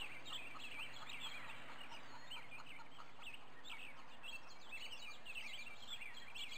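Birds chirping, many short quick calls overlapping throughout, over a faint steady outdoor background.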